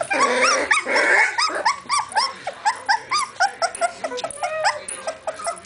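Border collie puppies about three weeks old squealing and yipping as they play. The cries are short and rise and fall in pitch, several a second. The first second has a rougher, noisier scuffle.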